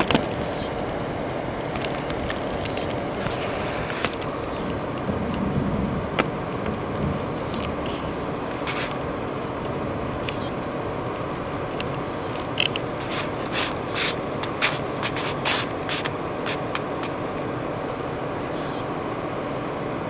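A car running, with a steady hum and noise, and a short run of sharp clicks and knocks in the middle.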